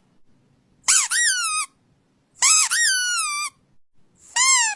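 Squeaky toy squeezed three times, each squeak a quick high blip that runs into a longer, falling note; the third is cut short near the end.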